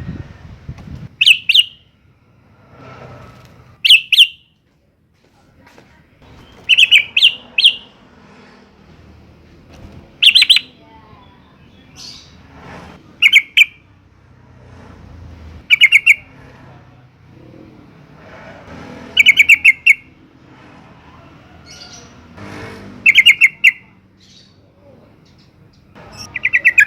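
Yellow-vented bulbul (trucukan) giving short, loud chirping phrases, about ten of them, each under half a second, every two to three seconds.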